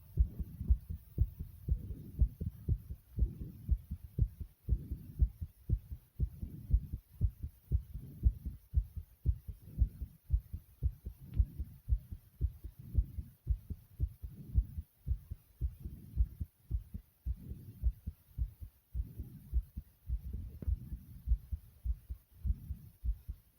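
A person's heartbeat: a steady, regular rhythm of low thumps.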